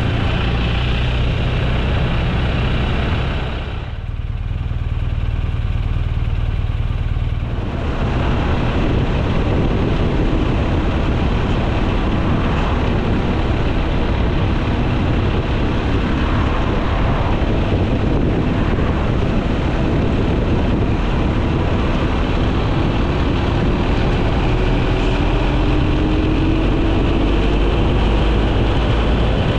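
Steady vehicle noise: a low motor hum under a dense rumble, with an engine note rising in pitch near the end. The higher part of the sound falls away for a few seconds about four seconds in.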